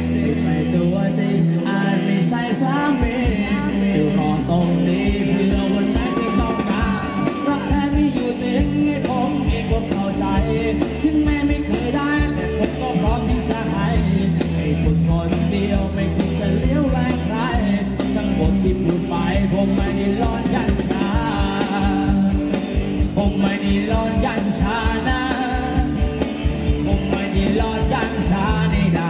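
Live band playing Thai dance music with a steady drum beat and a lead melody over it.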